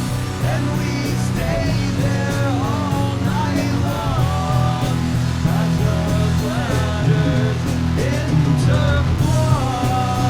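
Rock music: a band plays over a dense, steady bass, with a melody line above it that bends up and down in pitch. It was recorded to a Fostex X-77 cassette multitrack.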